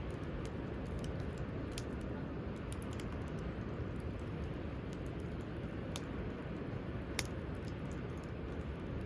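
Wood campfire crackling, with scattered small pops and one sharper pop about seven seconds in, over a steady low rumble.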